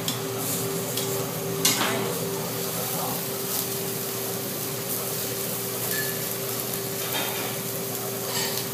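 Nopal cactus paddles sizzling on a restaurant flat-top griddle and charbroiler, a steady frying hiss over a constant kitchen hum. A single sharp clack of metal about two seconds in.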